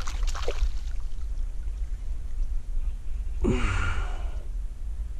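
A person's breathy sigh, falling in pitch, about three and a half seconds in, over a steady low rumble.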